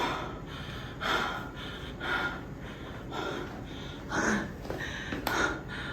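Heavy breathing of a person out of breath after a strenuous aerobic workout: breaths about once a second.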